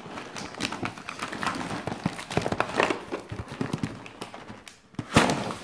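Black plastic mailer bag crinkling and rustling as a cardboard box is slid out of it, with one sharp knock about five seconds in.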